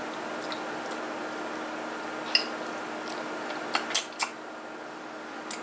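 Drinking straight from a cardboard carton of coconut milk: a few small sharp clicks and smacks of lips and carton, one about two seconds in and three close together around four seconds in, over a steady room hum.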